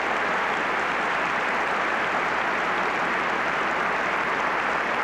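Theater audience applauding steadily: a large crowd clapping.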